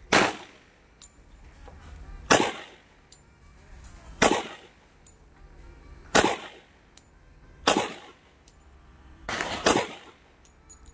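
Glock 21 .45 ACP pistol firing slow, aimed single shots, about seven sharp reports roughly two seconds apart, each with a brief echo; the last two come in quick succession near the end.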